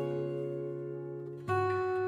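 Background music on acoustic guitar: a held chord slowly fades, then a new chord is struck about one and a half seconds in.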